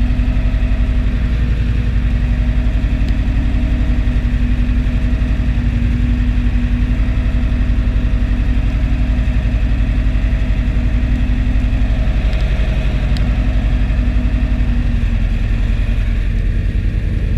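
Deutz DX 4.70 tractor's air-cooled diesel engine running steadily under load, heard from inside the cab; the engine note drops slightly about fifteen seconds in.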